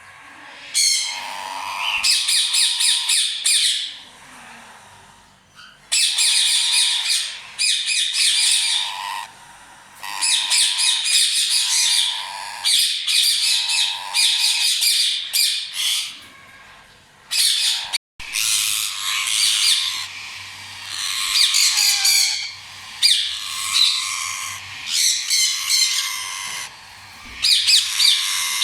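Indian ringneck parakeet chicks squawking: harsh, rapid calls in repeated bursts of one to a few seconds, with short pauses between.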